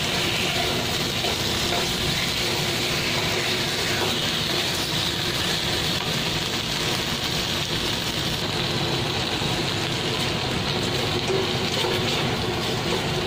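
Onions, ginger and chili flakes sizzling steadily in hot oil in a nonstick wok, stirred with a nylon slotted spatula.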